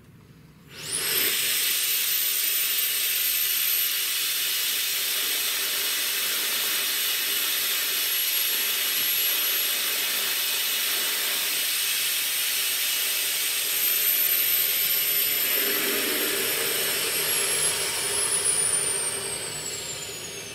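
EXAIR vortex tube running on compressed air at about 100 psi: a loud, steady rushing hiss with a very high whistle. It starts about a second in, and near the end the hiss fades while the whistle slides down in pitch.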